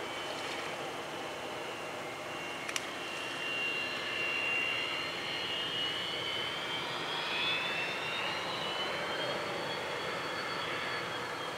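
EA-6B Prowler's twin J52 turbojets running at taxi power as the jet rolls past: a steady jet rush with a high whine that climbs in pitch and grows a little louder partway through.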